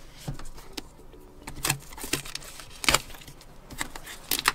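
Cardboard box and packaging being handled and opened by hand: several separate knocks and scrapes.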